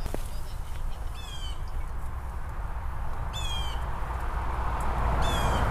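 A bird calling three times, a short call about every two seconds, over a steady low rumble of wind on the microphone.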